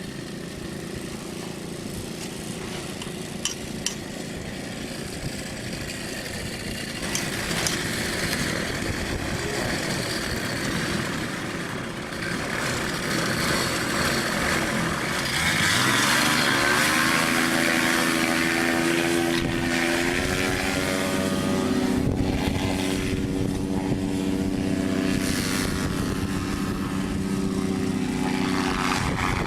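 Paramotor engine and propeller running at low throttle, then revving up from about halfway through and holding a steady, louder high throttle. Two short clicks sound near the start.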